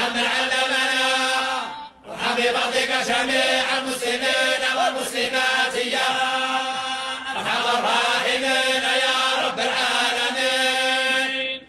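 A voice chanting an Arabic supplication (du'a) in a slow melodic style, holding long notes with ornamented runs, with a short breath pause about two seconds in.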